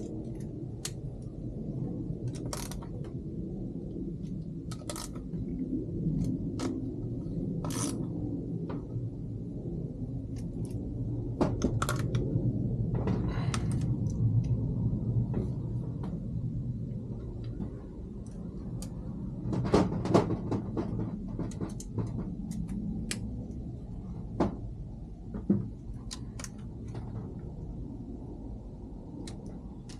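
Scattered clicks, clinks and a few louder knocks of small metal parts and hand tools being handled on a workbench, over a steady low background rumble in a small room.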